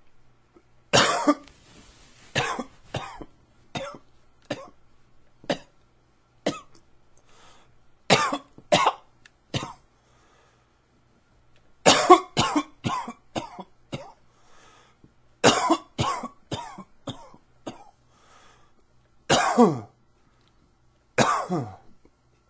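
A man coughing from allergies, in repeated fits of two to five short coughs with pauses between them, ending with two longer single coughs that fall in pitch.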